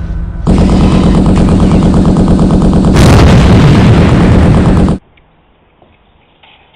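Loud, rapid gunfire with a louder blast about three seconds in; it cuts off suddenly about five seconds in, leaving only faint background sound.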